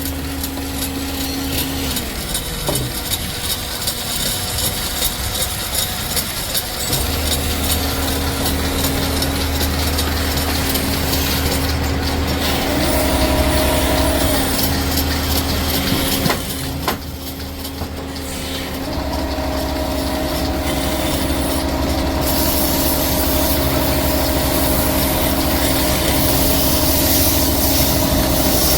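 Woodworking machinery running with a steady motor hum while wood is cut or shaped, the sound shifting at a few points as the work changes.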